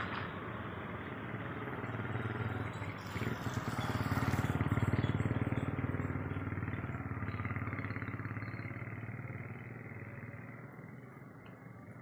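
A motor vehicle engine passing by, growing louder to its peak about four to five seconds in and then fading away.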